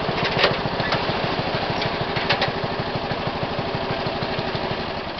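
John Deere 111 lawn tractor's Briggs & Stratton engine running steadily and fading gradually as the tractor drives away. A couple of short clicks sound about half a second and two and a half seconds in.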